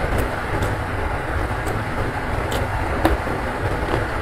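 Heavy rain falling in a steady rushing rumble, with a few soft clicks of close-up chewing over it.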